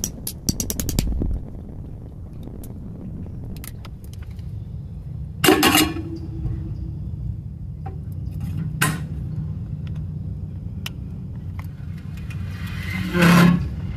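Steady low rumble with scattered clicks and knocks: a quick run of clicks in the first second, and two louder brief noisy sounds about five and thirteen seconds in.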